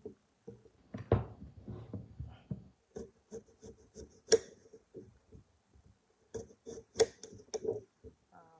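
Stainless kitchen knife cutting on a cutting board: a run of short cutting strokes, several a second, with a few louder knocks of the blade on the board.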